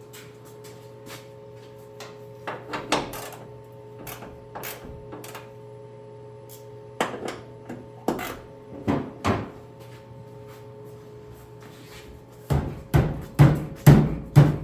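Steel hood of a 1968 Mustang being knocked and bumped to shift it on its loosened hinges: scattered sharp knocks, then a run of five heavy thumps in quick succession near the end.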